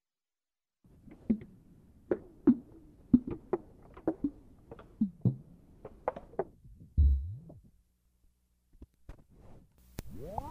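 Experimental electronic music: irregular synthesized percussive hits, several dropping quickly in pitch, then a deep thud about seven seconds in and a few sparse clicks. Near the end a rapidly pulsing synth chord begins.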